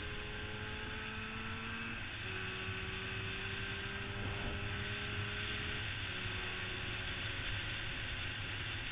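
1977 Yamaha RD400's two-stroke twin engine running under way, its pitch climbing slowly and then dropping twice, about two and six seconds in, as it shifts up. Wind rushes over the microphone.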